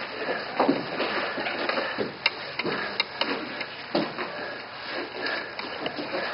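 Two people grappling on foam mats: scuffling and gi cloth rustling as they shift their weight, with a few sharp knocks a little after two and three seconds in.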